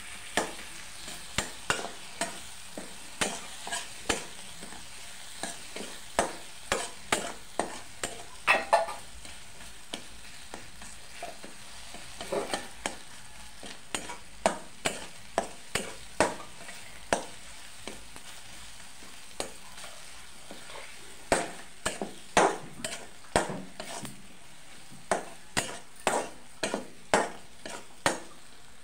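Metal spatula stirring and scraping masala paste frying in a steel kadai: short sharp scrapes about once a second over a steady sizzle, with a lull of a few seconds past the middle.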